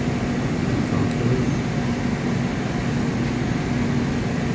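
Steady low mechanical hum and drone of running machinery, with a faint steady tone.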